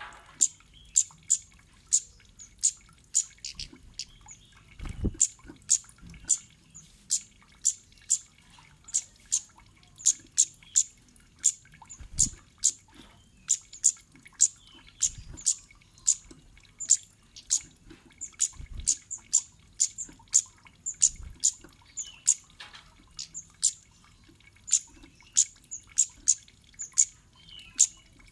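Kemade bird's 'cit' call: short, sharp, high-pitched chirps repeated about twice a second without a break, the kind of call played to lure other kemade birds into answering. A few dull low thumps sound now and then underneath.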